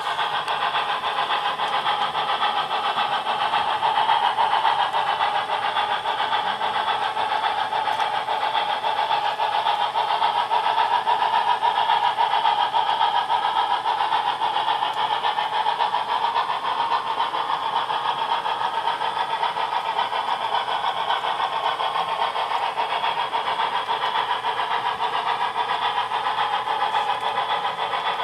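Model freight train running: a brass 4-6-6-4 Challenger model locomotive and its metal and wood freight cars rolling steadily along the track, a continuous mechanical running noise that swells slightly a few seconds in and again near the middle.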